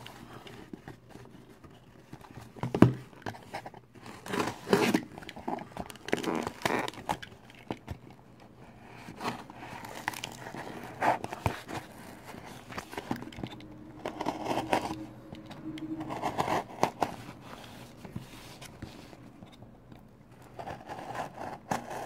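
Taped cardboard shipping box being handled and torn open by hand: irregular scraping, crinkling and tearing of cardboard and tape, with a sharp knock about three seconds in.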